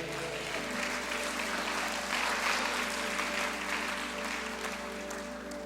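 Congregation applauding in response to the preacher, swelling about two to three seconds in and then dying away, over a soft sustained background chord of church music.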